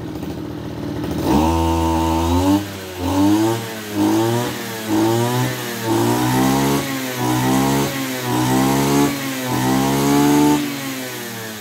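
Mitsubishi TL26 two-stroke brush cutter engine idling, then blipped up to high revs about eight times in a row, each time climbing smoothly and dropping back, before settling to idle near the end. It revs up crisply without bogging, the sign of a high-speed mixture screw set right on a clean carburettor.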